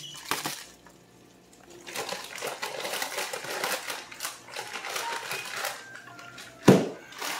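Frozen peas and carrots dropping into a hot wok with oil and onions, then a dense run of crackling and popping as the frozen vegetables hit the hot oil, with one loud thump near the end.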